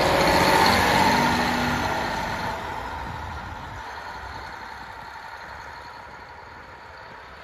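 JR Hokkaido KiHa 40 diesel railcar departing: its diesel engine runs loud as the car passes close, then fades steadily as the train pulls away.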